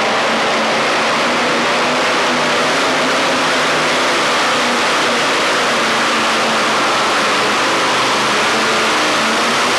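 Modified pulling tractor's engines running at high revs: a loud, steady rush of noise with a low engine hum beneath it.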